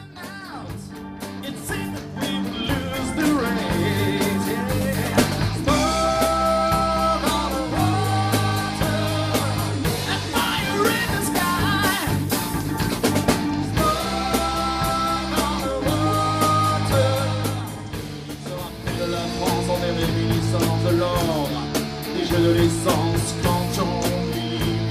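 Rock band recorded live at rehearsal, fading in: a singer over electric guitar, bass and drum kit, in a rough, low-budget recording.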